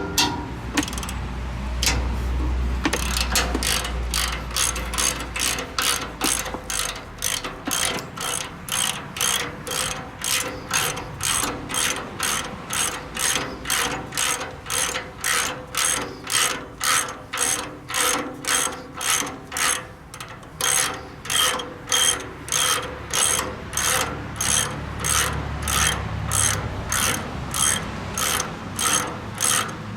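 Hand ratchet wrench being worked back and forth on a nut or bolt, its pawl clicking in an even rhythm of about two strokes a second.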